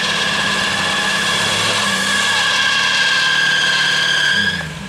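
A Jeep's alternator belt squeals steadily, one high tone held over the engine's low idle while the winch draws heavy current; the belt is worn from a day of winching and slipping. The squeal fades away near the end.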